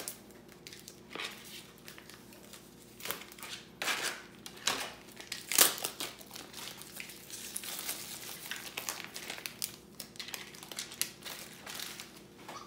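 Plastic vacuum-seal wrapping of a slab of bacon being slit with a knife, peeled off and crumpled: irregular crinkling and rustling with sharp crackles, the loudest a little before halfway.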